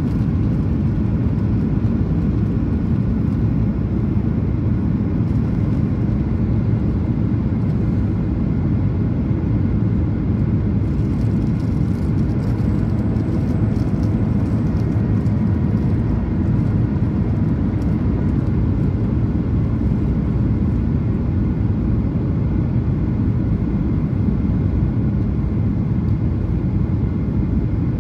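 Cabin noise of a Boeing 737-800 airliner: a steady, loud low rumble of its CFM56 jet engines and rushing airflow, heard from inside the cabin.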